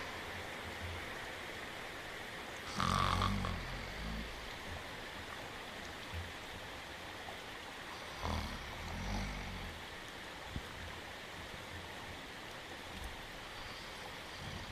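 A cartoon dog snoring, with slow snores about three seconds in and again about eight seconds in, the second coming as two breaths a second apart, over steady rain hiss. A brief click comes later on.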